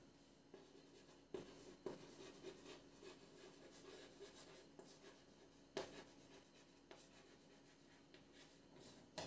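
Faint hand-writing sounds: light scratching strokes, with a few sharper taps about a second and a half in, near two seconds, and near six seconds.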